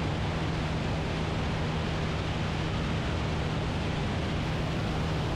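Cessna 172M's engine and propeller running at a steady drone under a heavy rush of wind, heard from a microphone outside the airplane, on a low approach to land.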